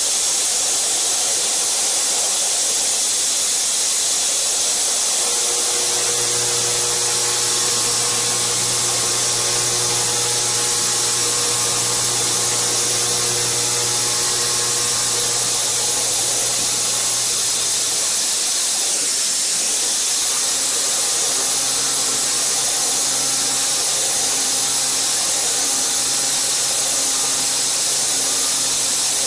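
Mazak VTC vertical machining centre cutting a deep countersink into stainless steel plate, under a loud steady hiss. A low cutting hum comes in about five seconds in and stops around eighteen seconds. It returns a few seconds later as a slightly higher, pulsing note.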